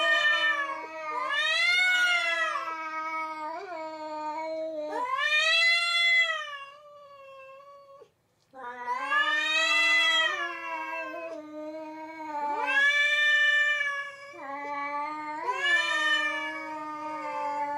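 A black cat and a black-and-white cat yowling at each other in a fight standoff. The long drawn-out yowls overlap and run almost without a break: one voice low and steady, the other rising and falling. There is a short pause about eight seconds in.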